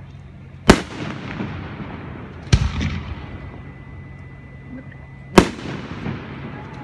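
Aerial fireworks going off: three sharp bangs about two to three seconds apart, each followed by a rolling echo that dies away.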